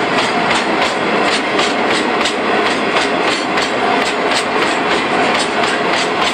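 Freight train of hopper wagons rolling past close by: steady rumble of steel wheels on rail with a rapid, regular clickety-clack as the wheels cross the rail joints.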